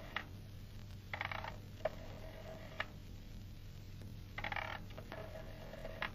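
Rotary telephone dial being dialled, two digits: each time a short ratcheting wind-up, then a whirring return that ends in a click.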